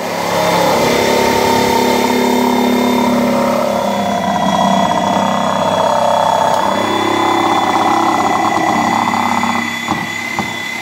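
Corded reciprocating saw cutting through the weathered wooden boards of a playset panel, running steadily with a high whine. Near the end the motor eases and a few sharp knocks of the blade in the wood come through.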